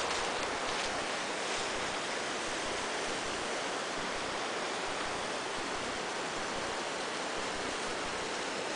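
Steady rushing of flowing river water, an even hiss with no distinct events.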